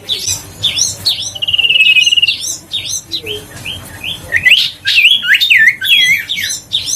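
Common iora singing vigorously: a fast run of sharp chirps and down-slurred whistles, with a rapid trill about a second and a half in and a busier burst of notes near the end.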